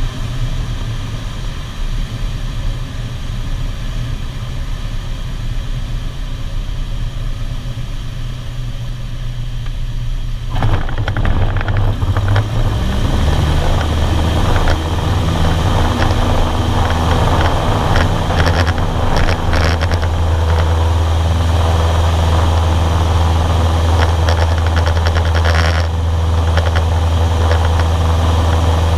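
Cessna 152's four-cylinder Lycoming engine and propeller heard from inside the cabin, ticking over at low power for about the first ten seconds, then the throttle opened to full power: the engine note jumps in loudness, rises in pitch over a few seconds and settles into steady full-power running as the aircraft takes off again on a touch-and-go.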